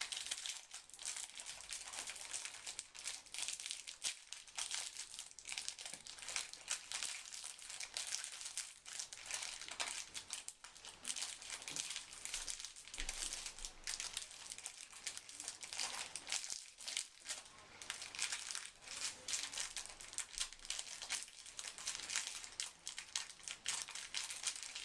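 Plastic wrapper of a Twinkie snack cake being crinkled and worked open by hand, a dense, unbroken run of small crackles.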